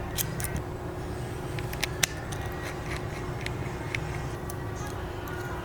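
A handful of short, sharp light clicks, the loudest about two seconds in, over a steady low hum.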